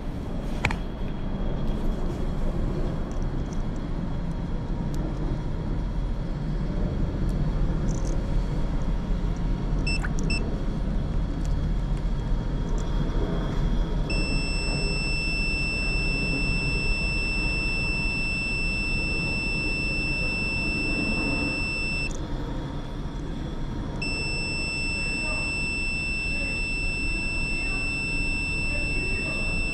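A multimeter's continuity beeper sounding: two short beeps about ten seconds in, then a long unbroken tone for about eight seconds, and after a short break the tone again, showing a closed circuit across the test probes. Underneath is a steady low rumble.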